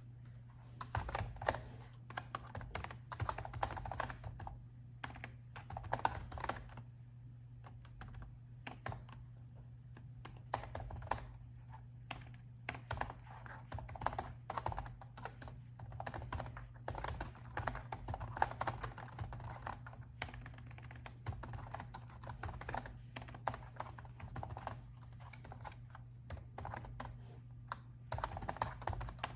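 Typing on a laptop keyboard: quick runs of key clicks in bursts with short pauses, starting about a second in, over a faint steady low hum.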